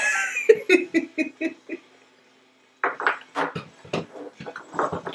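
Two girls laughing hard: a quick run of ha-ha pulses, a pause of about a second, then more laughter in uneven bursts.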